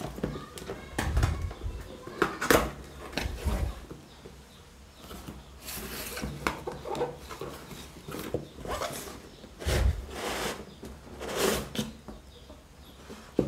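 Cardboard packaging handled and opened by hand: the inner box slid out of its printed sleeve with irregular scraping, rustling and knocks of cardboard, in several separate bouts.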